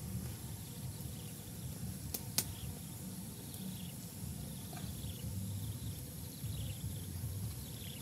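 A heavy cleaver cutting into a raw pig's liver on a wooden stump chopping block, with a sharp knock of the blade on the wood about two and a half seconds in, over a low steady rumble.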